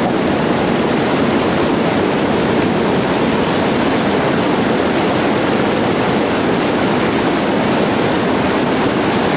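Whitewater rapids rushing: the loud, steady churn of a river hole.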